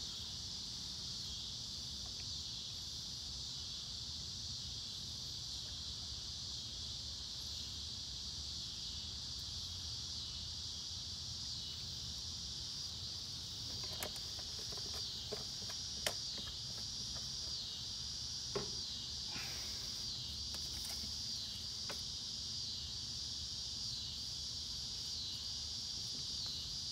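Steady, high-pitched chorus of insects, running without a break, with a few faint light clicks in the second half.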